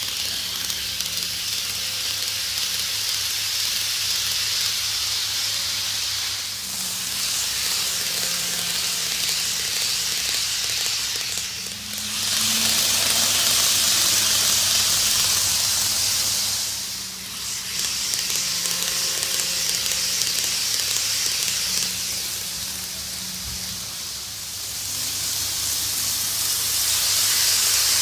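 N-gauge model train, a ten-car Tokyu 5050 series 4000 subseries set, running on its track: a steady high hissing whir of wheels on the rails and the motor, with a low hum beneath. It grows louder several times as the cars pass close by and fades in between.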